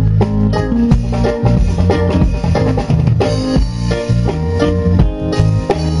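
Live band playing: electric guitar and a drum kit keeping a steady beat, with strong bass.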